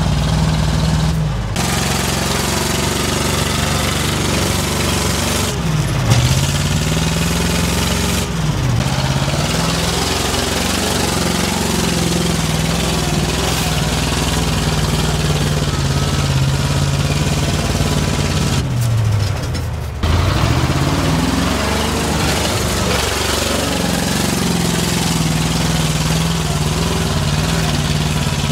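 Heavy off-road truck's diesel engine working hard under load, its pitch dipping sharply and climbing back several times, with a few brief breaks in the sound.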